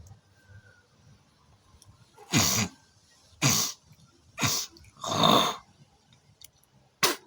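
A woman coughing hard four times, about a second apart, the fourth cough longer, then one short, sharp burst near the end. It is a heavy smoker's cough.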